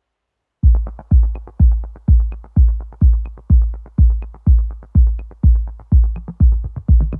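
Background electronic music: a track starts about half a second in with a steady kick drum beat, about two beats a second.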